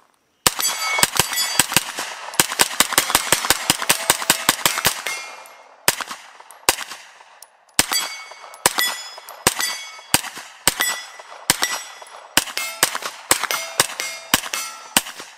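JP Enterprises GMR-15 9mm pistol-caliber carbine firing a long string of shots. The first few seconds come fast, about four or five shots a second. After a short pause the shots come at an even pace of roughly one to two a second. Steel targets ring after many of the hits.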